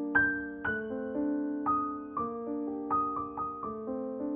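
Background piano music: a slow, gentle melody of single struck notes, each ringing and fading, about two or three notes a second.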